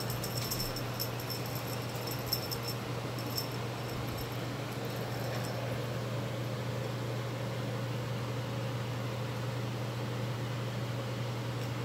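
A cat wand toy being dragged and twitched across a rug, giving many light, high ticks and tinkles through the first five seconds or so, then stopping. A steady low hum runs underneath.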